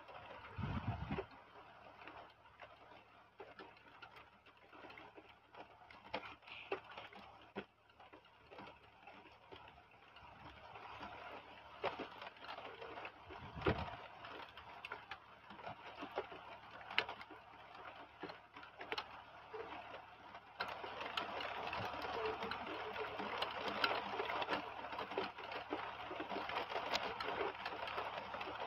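Heavy rain pattering steadily on tree branches and surfaces, with many separate drop taps, getting heavier about two-thirds of the way through. A couple of brief low thumps, one near the start and one midway.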